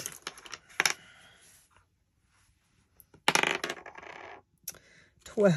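Several small dice rolled onto a desk, clattering for about a second before they settle, about three seconds in. A short vocal sound comes just before the end.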